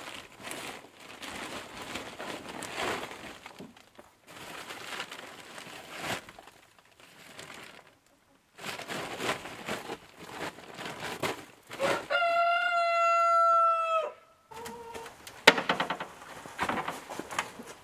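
A rooster crows once, a long held call about twelve seconds in and the loudest sound here, over the crinkling and rustling of a heavy plastic tarp being pulled over the coop's wire frame.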